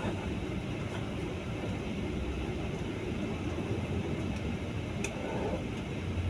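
Steady engine and road noise of a moving bus, heard from inside its cabin, with a brief click about five seconds in.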